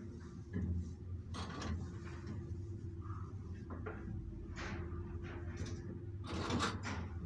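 1961 ZREMB lift car travelling in its shaft: a steady motor hum with a string of clacks and rattles, the loudest cluster about six and a half seconds in.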